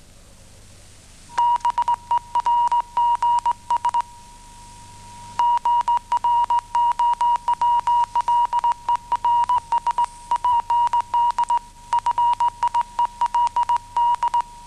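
Morse code from a wireless telegraph: a single high tone keyed in quick dots and dashes. It starts about a second and a half in, breaks off for about a second and a half, then resumes and keeps going. It stands for the ice warnings coming in from other ships.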